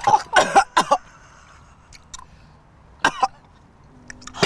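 A man coughing and hacking, three quick coughs in the first second, another about three seconds in and one more at the end: he is choking on a fish bone stuck in his throat.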